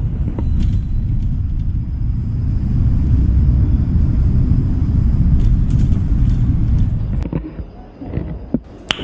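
The car vending machine's lift rumbles low and steady as it carries a car down the tower shaft, with a few scattered clicks. The rumble fades about seven seconds in, and a sharp click comes just before the end.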